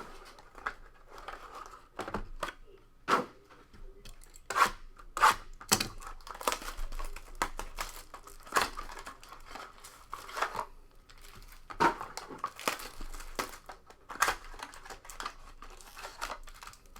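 Plastic wrapping on a sealed box of trading cards being torn and crinkled off in a series of short, irregular rips and crackles.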